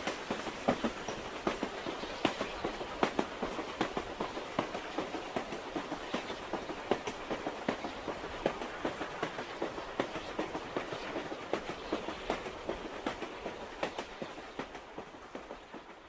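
Suburban electric train (elektrichka) running, heard from inside the carriage: a steady ride noise with many sharp clicks and knocks from the wheels on the track, dying down near the end.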